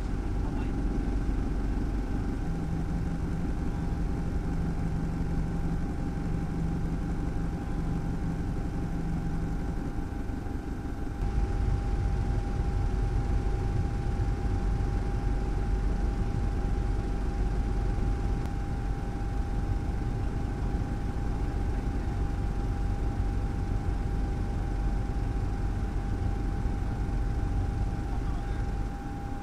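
Steady drone of the aircraft carrying the camera, a low engine rumble with a constant whine above it; it steps up slightly about eleven seconds in.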